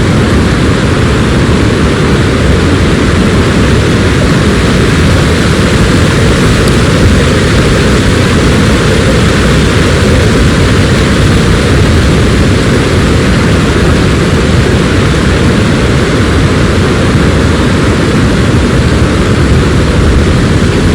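Loud, steady roar of a waterfall's falling water, unbroken throughout.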